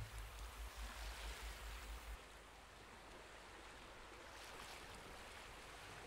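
Near silence: a faint steady hiss of background noise.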